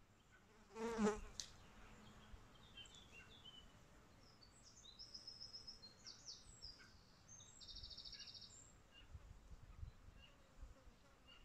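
A flying insect buzzing briefly past close to the microphone about a second in, followed by faint high-pitched chirps and a short trill.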